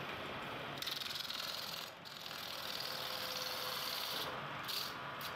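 Metal-spinning lathe turning an aluminium pot while a hand-held tool presses and rubs against the spinning metal: a steady scraping hiss that brightens about a second in and dips briefly about two seconds in.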